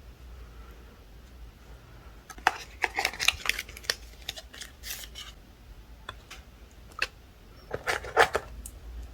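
iPhone 13 Pro Max box and packaging being handled: bursts of rustling with sharp clicks and taps, in clusters a few seconds apart.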